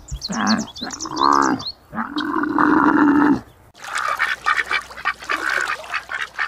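A camel's drawn-out pitched calls, twice, with small birds chirping above them at first. A little over halfway through this gives way to a group of mallard ducks quacking rapidly in short, overlapping calls.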